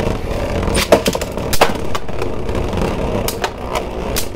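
Beyblade Burst tops spinning in a clear plastic stadium: a steady whirring rumble of their tips running on the plastic floor, with a few sharp plastic clacks as the tops hit.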